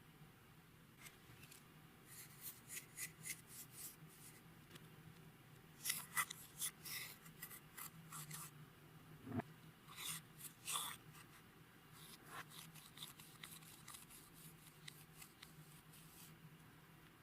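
Clear slime being worked by hand, giving faint sticky clicks and crackles in bursts, with a short falling squeak about nine seconds in.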